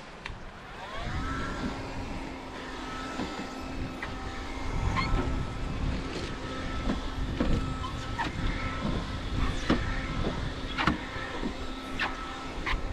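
A car running on the move: a steady engine hum after a rising note near the start, with scattered knocks and clicks.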